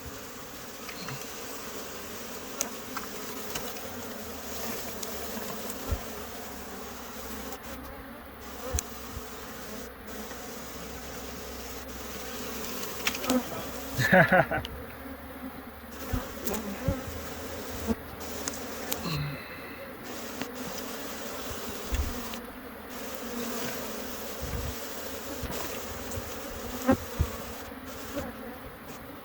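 Honey bee swarm buzzing steadily, stirred up and feisty. About halfway through a louder buzz swoops up and down in pitch, and scattered knocks sound throughout.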